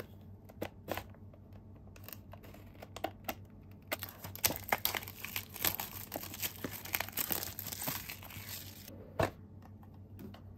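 Clear plastic shrink wrap being torn and peeled off a cardboard cube box, crinkling densely for several seconds in the middle. A few light clicks come before it, and a single sharp click near the end.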